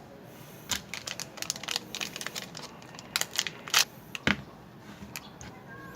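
Handling noise from a roll of 120 color negative film and its packaging being picked up and shown: a quick run of small sharp clicks and crinkles, with one louder knock a little past the middle.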